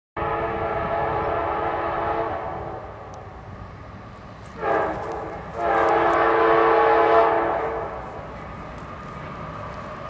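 Diesel locomotive's multi-note air horn on an approaching Norfolk Southern train, sounding a chord in a long blast, a short blast about four and a half seconds in, and another long blast, over the train's low rumble.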